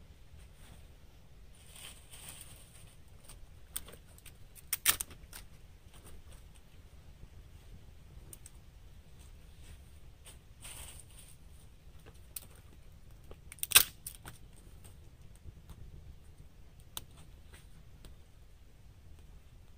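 Oak-wood campfire crackling, with scattered sharp pops and snaps; the loudest pop comes near the end of the second third, and there are short spells of hiss.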